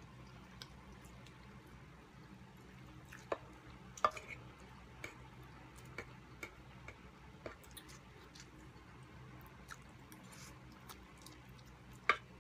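Quiet mukbang eating sounds: chewing and slurping of noodles with scattered short clicks of forks and spoons against the wooden board. The sharpest clicks come about four seconds in and near the end, over a faint low hum.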